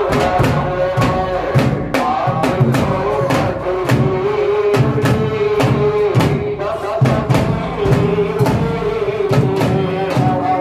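Large frame drums beaten in a steady rhythm, a few strokes a second, under a chanted devotional melody sung through a sound system.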